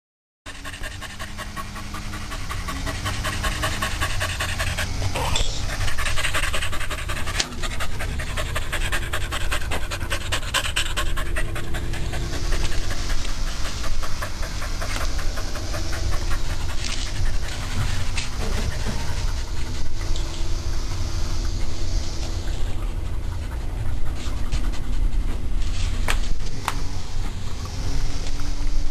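Puppy panting rapidly and steadily.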